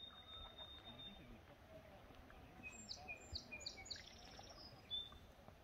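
Faint songbird singing over a quiet background. It gives a held high whistle at the start, then a quick run of short high notes from about three to four seconds in, and one more short whistle near the end.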